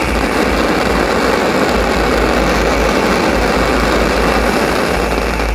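Fireworks finale going off in quick succession: a continuous, dense crackle and rumble from many crackling-star shells and comets fired together.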